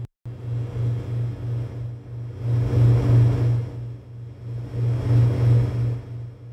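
Heavy war-vehicle engine sound effect: a low, rapidly throbbing drone that swells loud and eases back several times.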